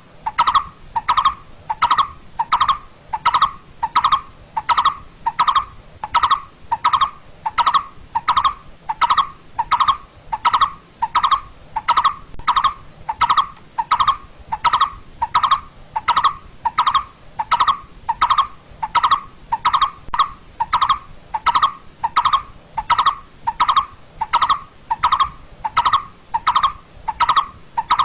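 Coppersmith barbet calling: one short note of the same pitch repeated about twice a second in a steady, unbroken series.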